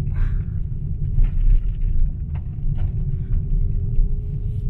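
Opel Corsa rolling along a gravel road, heard from inside the cabin: a steady low rumble of tyres and road, with scattered sharp clicks of gravel.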